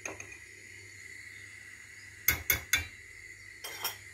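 Metal spoon clinking against kitchenware as cornstarch is spooned into a pot of milk: three quick sharp taps a little after two seconds in, then two lighter clinks near the end.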